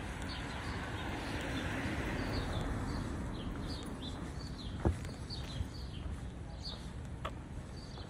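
Small songbirds chirping over and over, short high notes that slur downward, over a steady outdoor hiss that swells and fades again in the first three seconds, like a car passing. There is a sharp click about five seconds in and a fainter one near the end.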